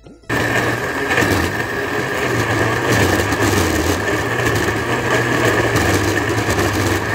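Electric mixer grinder switching on about a third of a second in and running steadily at full speed with a high whine, blending tomatoes into a paste.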